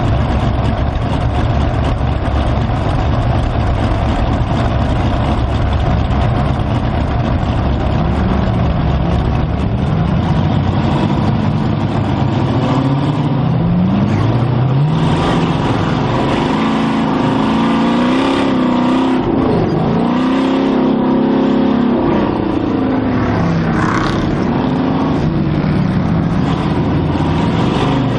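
Modified Jeep YJ race car's 560 hp engine through Dynomax race bullet mufflers, loud and rumbling. From about a third of the way in it revs up and down again and again as the Jeep gets under way.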